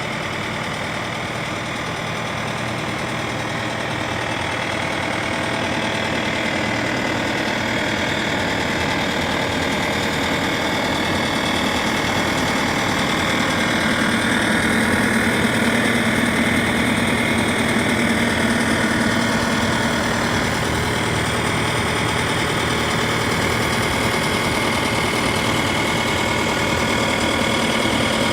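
Bobcat T550 skid steer's diesel engine running steadily, growing louder over the first fifteen seconds or so and then holding.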